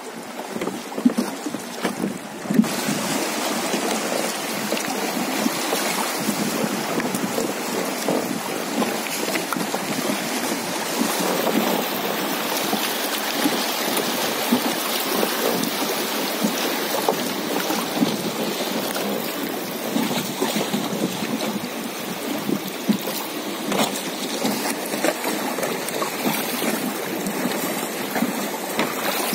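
Rushing, splashing water of shallow rapids on the Dunajec river as a wooden raft passes through. The noise is steady and jumps louder about two seconds in.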